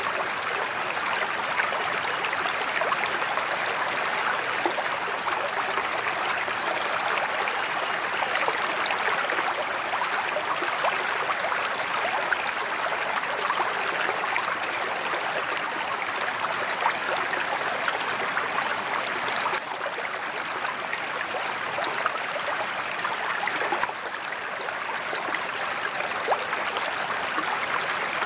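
Steady splashing of a sheet-flow spillway waterfall pouring into a koi pond.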